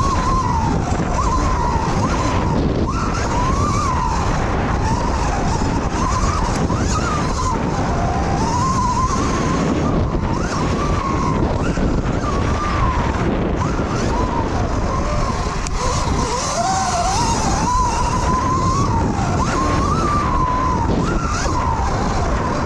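Electric dirt bike's motor whine rising and falling continually with the throttle, over a loud steady rush of wind and tyre noise.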